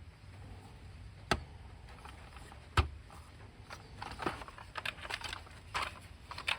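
Hard plastic toy parts clicking and tapping as a repaired missile rack is fitted onto a vintage G.I. Joe Snowcat: two sharp clicks, then a quicker run of lighter clicks and taps near the end.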